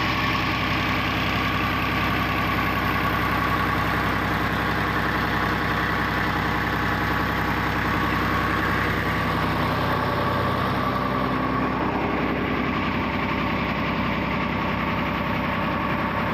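New Holland Ghazi 65 hp tractor's diesel engine idling steadily.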